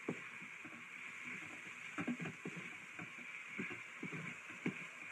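A spoon stirring spices in the stainless steel inner pot of an Instant Pot, with irregular light knocks and scrapes against the pot over a faint steady hiss.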